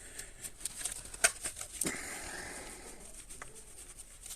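Scattered plastic clicks and knocks, the sharpest a little over a second in, with a brief rustle near the middle, as an Audi A6 C5 heater blower motor is worked slowly out of its plastic housing.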